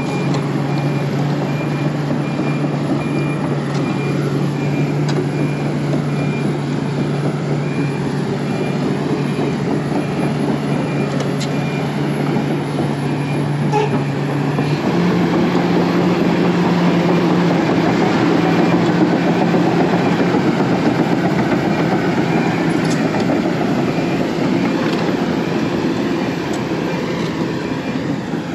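Large excavator's diesel engine running steadily, stepping up in speed and getting louder about halfway through. A faint high-pitched beep repeats through the first half.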